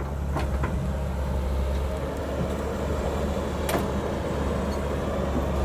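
Cat 312B hydraulic excavator's diesel engine running steadily under load as it lifts a bucket of soil and swings it over to a dump truck. A single sharp clank comes about two-thirds of the way through.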